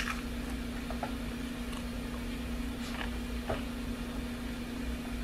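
A person chewing a crisp cracker, with a few faint crunches, over a steady low hum.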